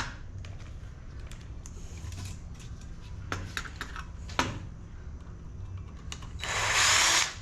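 Cordless drill/driver fitted with a number 1 bit, briefly spinning for just under a second near the end, as it backs out a screw from an LED lamp housing. A few light clicks and knocks of handling the parts come before it.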